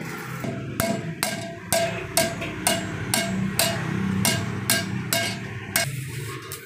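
Hand hammer striking a steel strip on an iron bending jig while curving it, about two sharp, briefly ringing metal blows a second, stopping shortly before the end.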